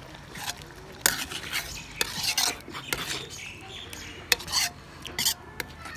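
A steel ladle stirring chicken and yogurt in a metal karahi, with irregular clinks and scrapes as the ladle strikes and drags along the pan.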